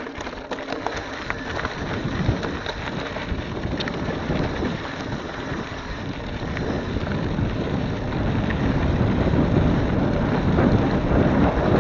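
Wind buffeting the microphone of a bicycle-mounted or handheld camera as the bike rolls downhill. The rush grows steadily louder as the bike picks up speed.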